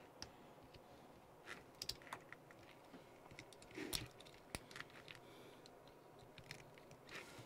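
Faint, irregular clicks and rustles of wires and small plastic parts being handled while a connector lead is routed into an RC car's plastic receiver box.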